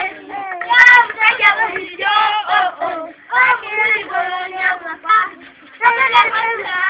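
Young children singing together in high voices, in short phrases with brief breaks about three seconds and five and a half seconds in.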